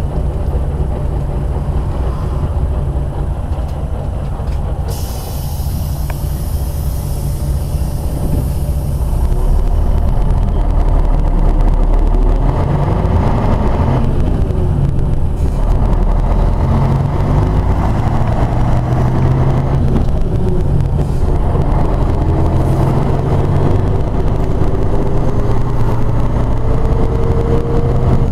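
Interior sound of a Karosa C734 bus's rear-mounted diesel engine running under way, heard from a passenger seat. A few seconds of compressed-air hiss come about five seconds in. From about a third of the way through the engine pulls harder, its pitch climbing, dropping back as the gearbox shifts up, and climbing again.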